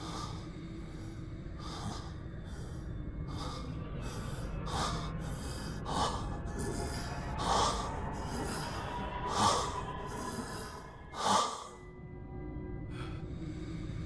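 Male voice actor panting hard, a steady run of quick, heavy breaths about one every second or less, the breath of a wounded, exhausted anime character. The breaths grow louder and harsher toward the end, break off briefly, then start again. A low steady rumble runs underneath.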